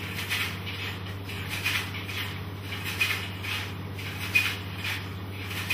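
Film scanner running film through its transport: a steady low hum with a soft rhythmic rustle about three times a second, and a sharper click roughly every second and a half.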